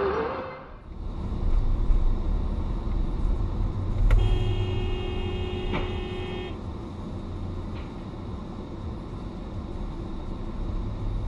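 Low, steady engine and road rumble heard from inside a moving car. About four seconds in, a car horn sounds in one steady blast of about two seconds.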